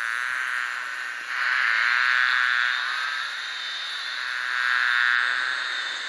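A mass of honeybees buzzing, a dense steady hum that swells louder twice.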